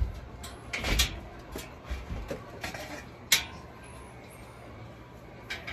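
Clanks and knocks from a black steel boltless shelving rack being assembled by hand as its parts are fitted into the uprights. There are a few light knocks about a second in and one sharp, loudest clank a little past three seconds.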